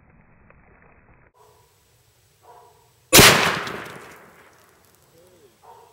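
A single .444 Marlin rifle shot, heard from beside the pumpkin target about 35 yards from the rifle, as the bullet strikes the pumpkin: one sharp crack about three seconds in, dying away over about a second.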